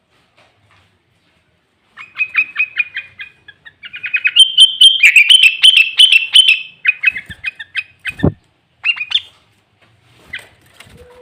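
Sooty-headed bulbul (kutilang) singing loudly in runs of fast, rapidly repeated chirping notes, a song filled with imitated greater green leafbird (cucak ijo) phrases. It starts about two seconds in, with a short low knock about eight seconds in.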